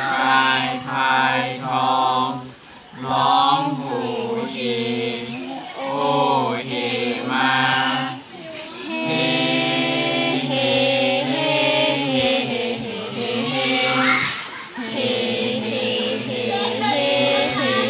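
A small mixed group of young male and female voices chanting a Thai royal barge song (kap he ruea) together, unaccompanied, in long drawn-out sung phrases with short breaks for breath between them.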